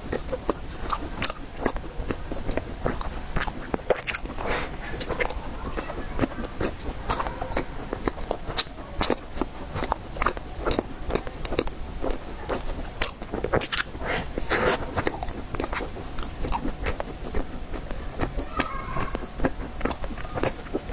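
A person biting and chewing tiger skin roll, a soft rolled sponge cake, making many short wet mouth clicks throughout.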